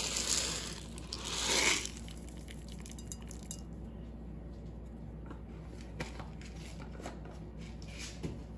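Whole peppercorns shaken out of a container into a bowl: a rustling rattle for about two seconds, then a few faint clicks.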